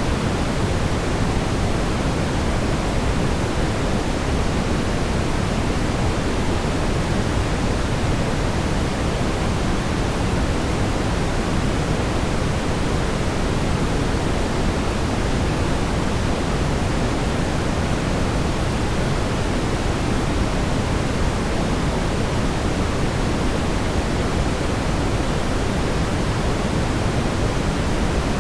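Steady brown noise: a constant, even hiss weighted toward the low end, without any change or events.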